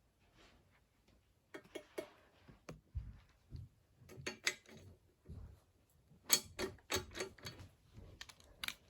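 Irregular sharp metallic clicks and knocks in short clusters, the loudest a run of several quick clicks about six to seven seconds in: hand tools working on the fittings of a Safetran mechanical crossing bell to loosen them.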